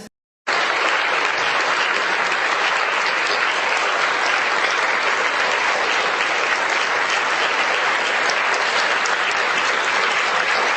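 Applause from a large crowd, starting abruptly after a brief silence and going on steadily.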